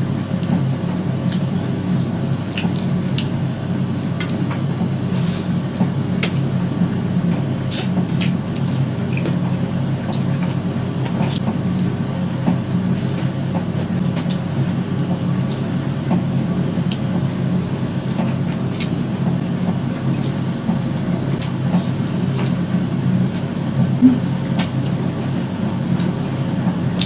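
A steady low hum, with scattered soft clicks and crackles of chewing and of roast chicken being torn apart by hand.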